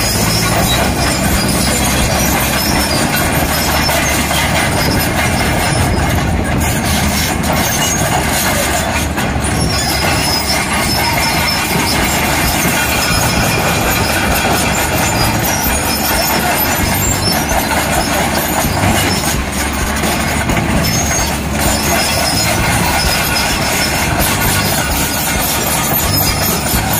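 Hyundai crawler excavator travelling on its steel tracks: the diesel engine running under the steady clanking of the track chains.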